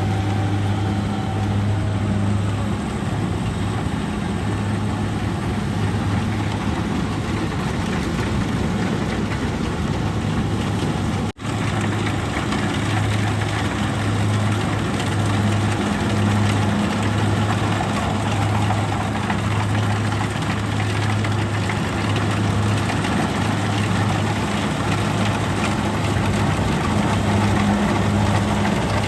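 Kubota DC-70G rice combine harvester running steadily, its engine giving a low, even hum with machinery noise over it. The sound cuts out for an instant about eleven seconds in.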